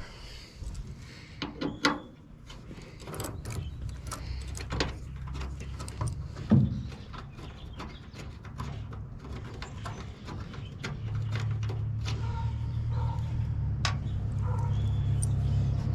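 Scattered clicks and knocks of the truck's plastic tail light housing being handled and worked loose from its push-in rubber grommets, with one louder knock about six and a half seconds in. A low steady rumble underneath grows louder in the second half.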